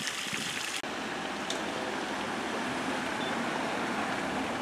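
Steady outdoor background noise with no distinct events, changing abruptly a little under a second in.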